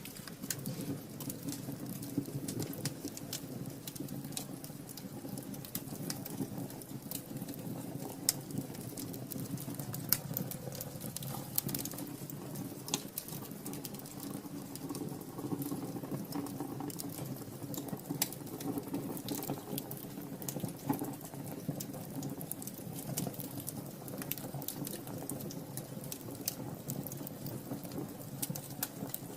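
Wood fire burning in a fireplace: a steady low rush of flames with frequent, irregular sharp crackles and pops.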